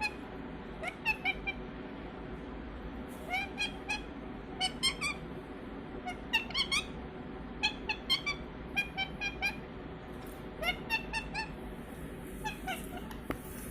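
Pet parrot giving short, high chirping calls in quick clusters of two to four notes, repeated about every second.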